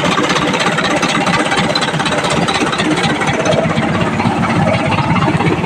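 Isuzu 4HK1 four-cylinder common-rail diesel engine running steadily just after starting on one turn of the key. The no-start fault is cleared.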